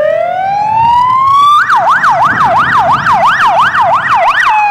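Ambulance siren: a slow rising wail that switches, about a second and a half in, to a fast yelp sweeping up and down about three times a second, then drops back to a slow wail near the end.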